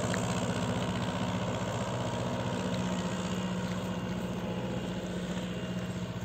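A motor vehicle's engine idling steadily, a low even hum with a regular pulse.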